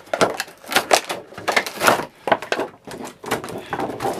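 Clear plastic doll-box packaging crinkling and crackling as it is handled and pulled apart by hand: a quick, irregular run of crackles and clicks.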